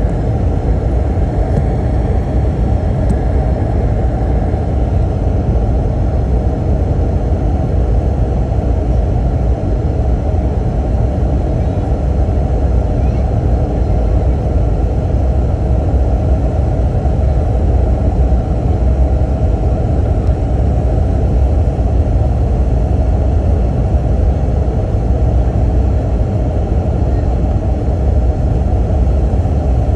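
Steady low rumble of engine and airflow noise inside the cabin of an Airbus A321 on approach, flaps extended.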